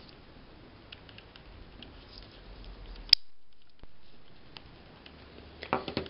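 Faint clicks and taps of a Swiss Army pocket knife being handled, its tools folded and the knife set down on a tabletop, with one sharper click about three seconds in.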